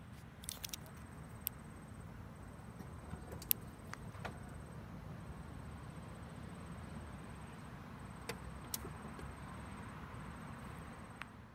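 Quiet outdoor ambience: a faint steady low rumble, with a few scattered light clicks and a faint, high-pitched chirring that comes and goes in stretches.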